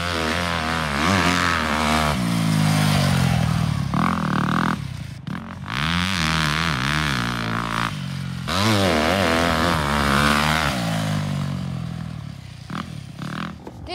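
Yamaha YZ motocross bikes on the track, engines revving and climbing in pitch, dropping and climbing again as the riders throttle and shift, with several abrupt changes from one pass to the next.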